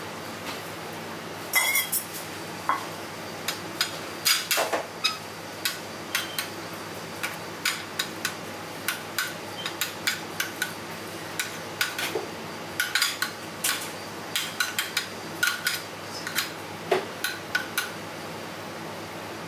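Metal spoon clinking and scraping against a square stainless-steel food ring while a chopped mixture is pressed into it on a plate: many short, irregular clinks.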